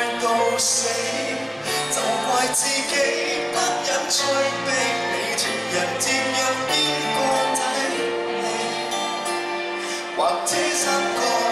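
Live pop band playing a song, with cymbal strokes, a male singer singing over it.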